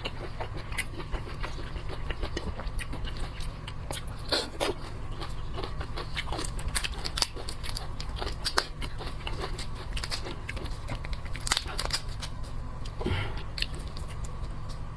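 Close-miked eating: a person biting and chewing seafood, with many sharp, irregular crunches and clicks over a steady low hum.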